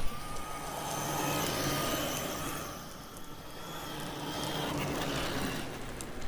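Arrma Kraton 8S RC monster truck's brushless motor whining steadily as it pulls a loaded wagon, over the rolling noise of wheels on asphalt. It fades a little about three seconds in, then builds again.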